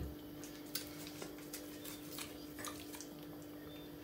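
Faint, scattered crinkles and ticks of a small snack wrapper being handled and opened, over a steady faint hum.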